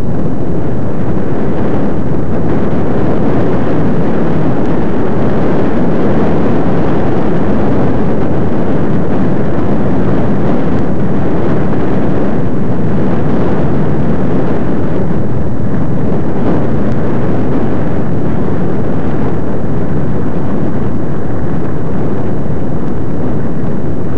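Loud, steady wind rush over the camera's microphone while riding a bicycle, a dense low rumble with no breaks.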